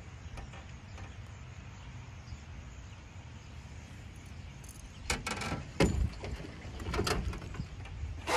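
Fishing gear clattering and knocking against a small boat as it is rummaged through, starting about five seconds in with a loud knock soon after, over a steady low rumble.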